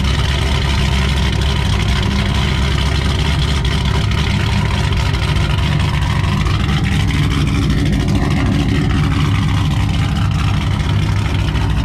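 Ford Mustang GT's cammed three-valve 4.6-litre V8 with a Pypes exhaust, running loudly at low revs as the car pulls away slowly.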